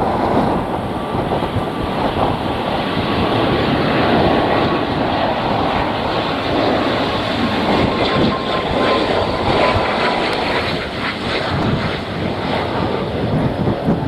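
ATR 72-500 turboprop's twin engines and propellers running on a low approach as it passes close, a steady rushing drone with a thin whine in the first half, mixed with strong gusty wind on the microphone.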